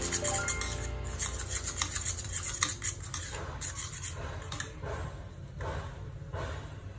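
Metal fork scraping and stirring against a ceramic bowl in repeated short, irregular strokes, mixing mashed banana.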